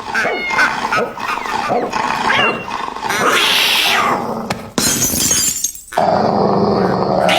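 An animal growling and crying out, mixed with knocks and clattering.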